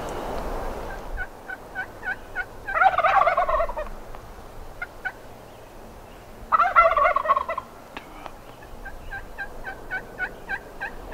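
Merriam's wild turkey gobbler gobbling twice from its roost tree, about four seconds apart. Between and after the gobbles, runs of short, quick yelps from a hen turkey call answer him.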